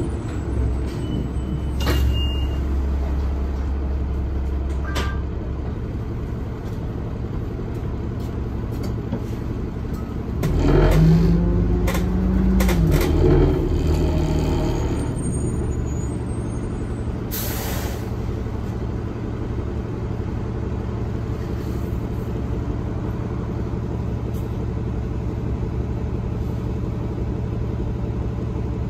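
Orion VII diesel city bus heard from inside the passenger cabin: a steady engine hum with road rumble and a few small rattles. About ten seconds in, the engine note climbs and grows louder for a few seconds, then settles. A little past the middle comes a short burst of air hiss from the bus's air system.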